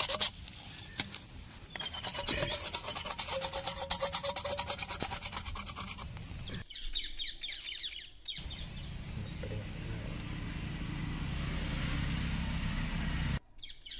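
A saw blade scraped rapidly back and forth over the end of a PVC pipe to roughen it before gluing, in a quick, even rhythm. After a cut, shorter scratchy handling noises follow.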